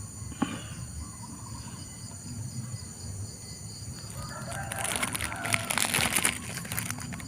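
A rooster crowing once, about four seconds in, over steady high insect buzzing. Sharp crackling clicks pick up near the end.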